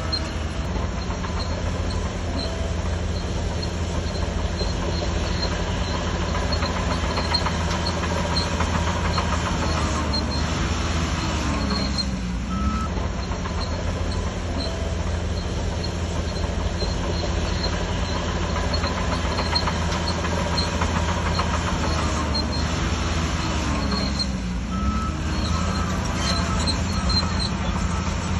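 Shantui DH17C3 crawler bulldozer working: a steady diesel engine hum under heavy clanking and squeaking from its steel tracks. The engine pitch dips and recovers twice, about twelve seconds apart.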